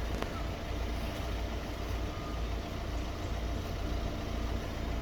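A vehicle engine idling steadily, a continuous low rumble.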